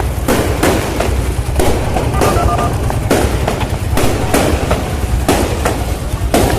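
Aerial fireworks bursting in quick, uneven succession, about a dozen sharp bangs, over a steady low rumble.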